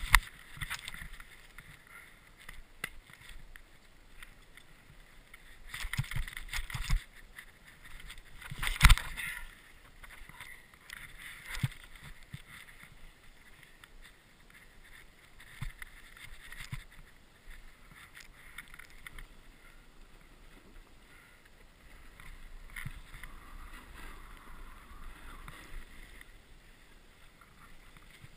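Snowboard sliding and carving on snow: the base and edges hiss and scrape in surges as the board turns. A few sharp knocks come through, the loudest at the start and about nine seconds in.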